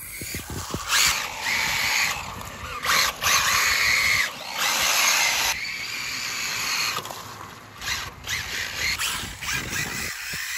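Sensored brushless motor and four-wheel-drive drivetrain of an RC speed-run car whining in repeated bursts as it accelerates and lets off, the pitch rising and falling. The tyres hiss through standing water on wet tarmac.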